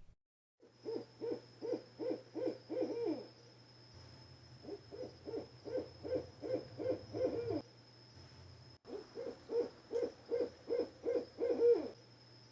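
Owl hooting in three quick runs of about eight to ten short hoots each, roughly three a second, the last hoots of each run sliding down in pitch.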